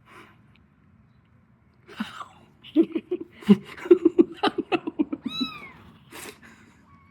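Young kittens mewing: a quick string of short mews, then a higher mew that slides down in pitch.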